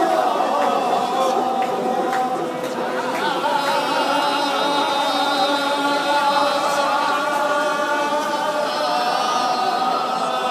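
A group of men singing a slow festival chant in unison, long held notes that waver in pitch, the voices overlapping without a break.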